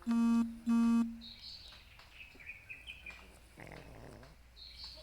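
Two short, loud beeps of one steady buzzy tone in the first second, with birds chirping in the background. About three and a half seconds in comes a short raspy snore from a sleeping French bulldog.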